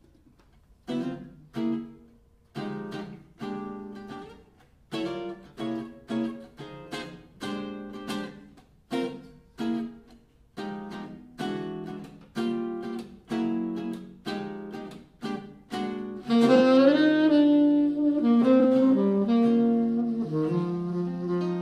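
Archtop acoustic jazz guitar playing a chord intro, short strummed chords with gaps between them. About sixteen seconds in, a saxophone enters with a sustained melody over the guitar.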